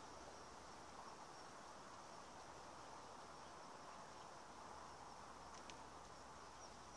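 Near silence: faint outdoor ambience with a steady, high, faint hum of insects and one faint click near the end.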